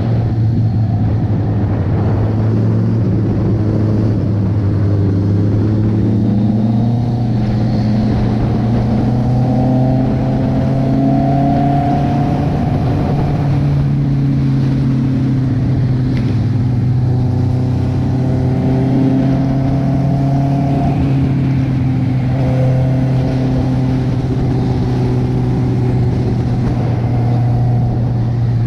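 Honda CB650R's inline-four engine running steadily as the motorcycle rides along, the revs climbing slowly and dropping back about three times.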